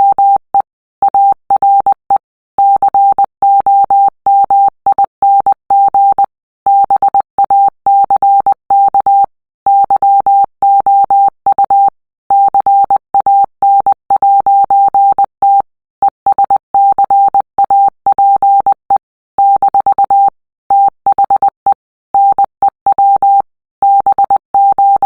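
A Morse code message played as a single steady beep, keyed on and off in short and long tones (dots and dashes), with longer pauses between letter and word groups.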